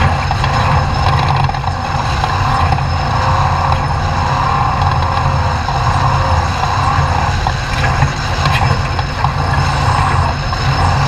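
Off-road race truck running steadily under way, its engine and drivetrain making a loud continuous rumble mixed with wind and terrain noise. A few short sharp knocks come through, one clearly about eight seconds in.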